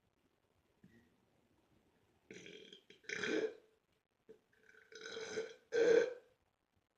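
A man belching deliberately after drinking a bottle of Pepsi: two long burps about three seconds apart, each with a quieter lead-in, the second the louder.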